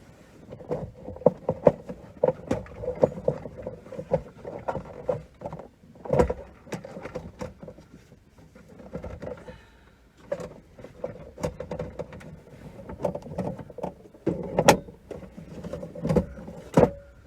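Plastic car interior trim of the center console being worked loose by hand: an irregular run of clicks, knocks and creaks, with a couple of quieter pauses.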